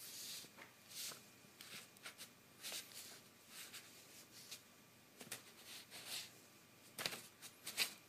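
A cat's paw patting and scratching at a sheet of paper: faint, irregular rustles and scrapes, about a dozen short strokes, with a few sharper ones near the end.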